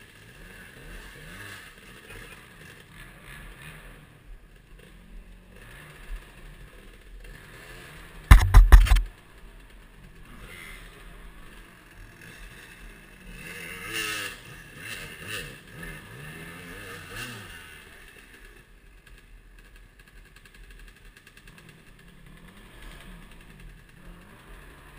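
Off-road dirt bike engines revving up and down as riders work their way up a rutted bush hillside, louder for a few seconds past the middle. A very loud knock about a third of the way in is the loudest sound.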